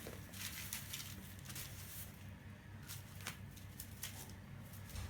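Faint rustling and light crackling clicks of broomcorn stalks being handled and laid into a broom, over a low steady hum.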